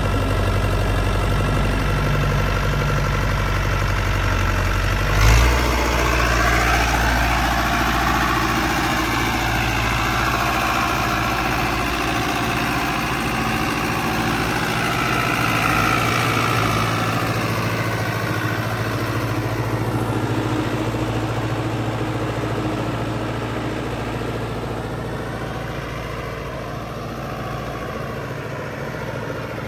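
Fiat 640 tractor's diesel engine running steadily while the tractor works soil with a hydraulic front blade, the engine note shifting up and down with the load. A single sharp knock sounds about five seconds in.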